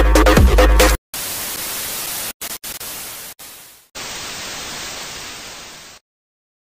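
Electronic music with deep bass cuts off about a second in. A hiss of TV-style static noise follows, breaking off sharply several times, then stops abruptly near the end.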